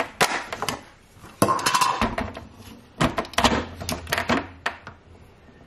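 Hard clicks and clatters in several quick runs from a plastic blender jug full of cut cassava being picked up and handled at a stand mixer.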